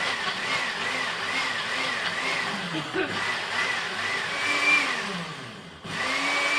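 Countertop blender pulsing on carrots in water, its motor speeding up and slowing again about twice a second in short bursts. Near the end it stops for a moment, then runs for a longer, steady burst.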